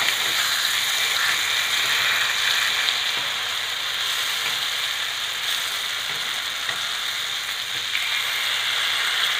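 Dried fish in chilli paste sizzling steadily in sesame oil on a cast-iron dosa tawa, frying on low heat, with a steel spatula scraping and turning the pieces on the pan.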